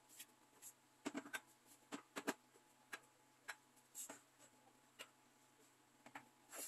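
Faint, irregular clicks and light knocks of tin cans being set down and shifted on metal store shelves, a cluster of them between about one and two and a half seconds in.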